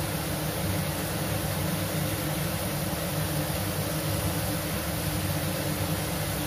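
Onion-tomato masala cooking in a kadhai over a gas burner on medium flame: a steady low hum with an even hiss.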